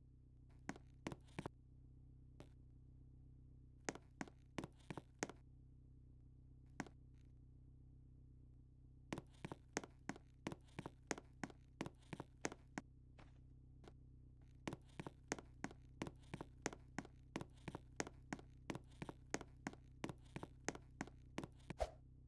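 Sharp, irregular taps or clicks, a few at a time early on and then in longer runs of about three a second, over a faint steady low hum.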